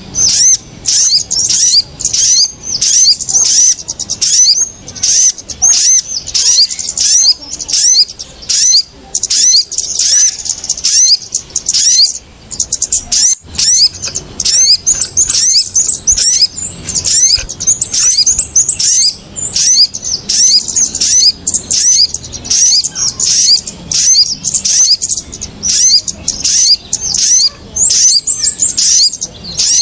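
Bird-lure (pikat) recording of kemade and sogon birds calling agitatedly: a dense run of rapid, high chirps with only brief pauses. This is a lure call meant to draw small birds down to birdlime.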